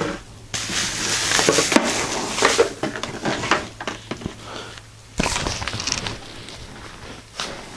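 Crackling, rustling handling noise of packaging being pulled off and away from a small TV set during unboxing, dense for the first few seconds and then in a few shorter bursts.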